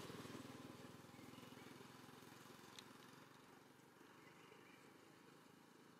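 Near silence: faint background noise, with one faint tick about three seconds in.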